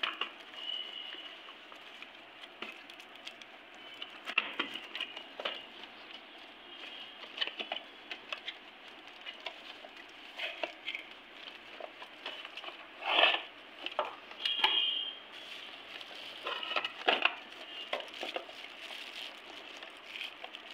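Hands handling a cardboard speaker box and its packing: scattered clicks, taps and short crinkling rustles, with a few louder rustles about two thirds of the way through.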